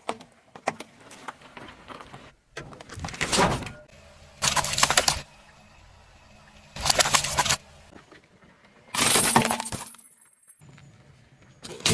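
Objects crunching and cracking as they are crushed under a car tyre, in four short crackly bursts a second or two apart.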